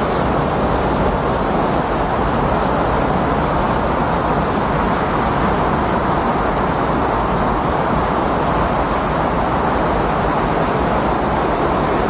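Windstorm: a loud, steady rush of wind with no distinct gusts.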